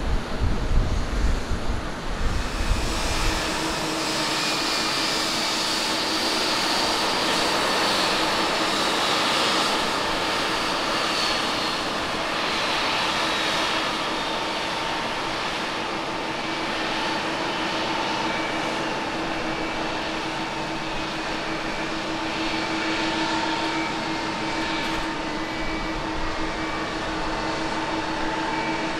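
Low rumble of a Boeing 777-300ER's GE90 jet engines on climb-out for the first three or four seconds, then an Airbus A321neo's engines on final approach, touchdown and rollout: a steady jet hiss with several held whining tones.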